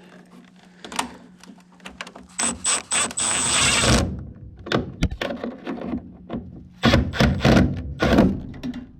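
A power screwdriver runs in a few short pulses and then steadily, driving in a screw that holds the replacement inducer draft motor. Around it come clicks, and near the end a run of loud knocks and clatter from the parts and tools being handled.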